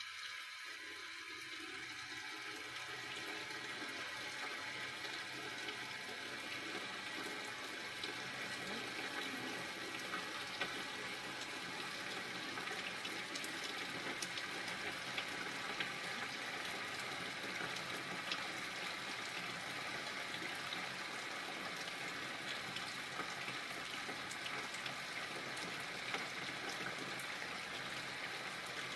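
Steady rain falling: a continuous hiss with scattered sharp ticks of drops striking nearby surfaces.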